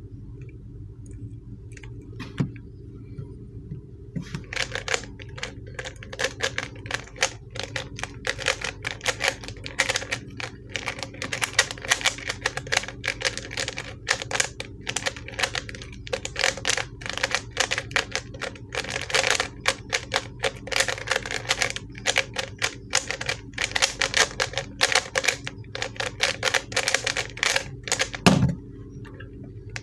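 ShengShou 3x3 speed cube turned fast by hand during a timed solve: a dense, irregular run of plastic clicks and clacks from its layers, starting about four seconds in with brief pauses. It ends with a single thump near the end as the solve stops. The cube is a stiff, hard-turning one.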